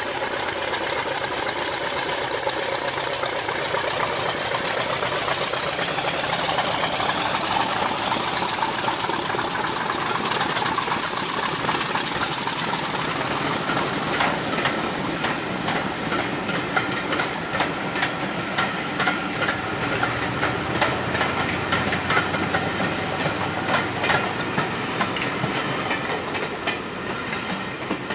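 English Electric Class 40 diesel locomotive passing and pulling away, its engine noise fading, with the class's high turbocharger whistle holding steady and then rising in pitch about twenty seconds in. The coaches' wheels clatter rhythmically over the rail joints in the second half.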